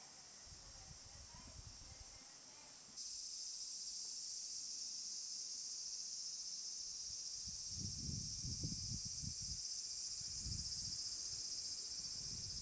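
Summer cicadas in the trees: a dense, steady high buzzing that gets louder about three seconds in. Irregular low thuds come in over the second half.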